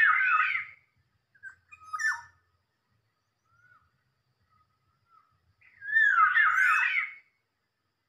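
Black-naped oriole calls: two loud, looping, whistled phrases, one at the start and one about six seconds in, with a few shorter calls around two seconds in.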